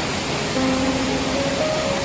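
Steady rushing waterfall noise with soft, slow music mixed over it: a few gentle held notes come in about half a second in.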